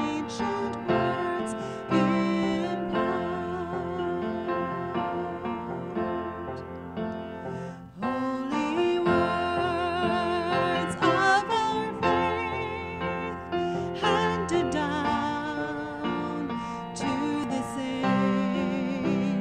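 A slow worship song: a singer with vibrato over piano accompaniment, with a brief pause about eight seconds in between lines.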